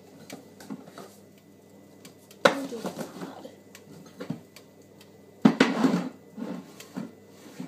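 Kitchenware clattering and clinking, as dishes or jars are moved about: two sharp knocks a few seconds apart, the loudest sounds, with lighter clicks and clinks between.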